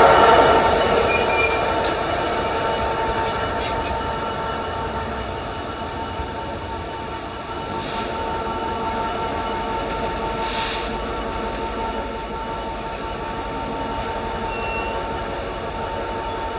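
Freight train wagons rolling past with a steady rumble, loudest at the start and easing off. A high, steady wheel squeal sets in about halfway through and carries on.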